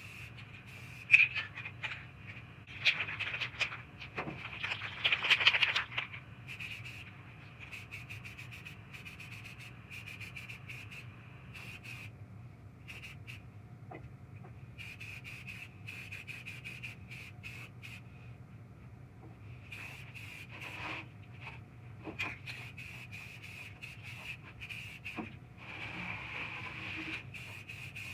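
Uneven rubbing and scraping strokes from hand sanding, loudest about three to six seconds in, with a few sharp clicks.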